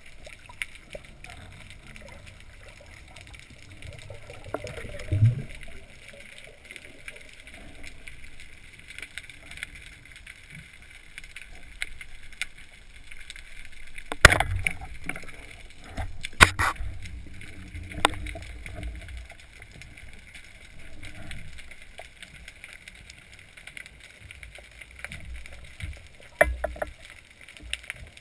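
Underwater sound picked up by a GoPro HD in its waterproof housing during a spearfishing dive: a steady muffled water hiss with scattered clicks. Sharp knocks stand out about 14 and 16 seconds in, and another at about 18 seconds.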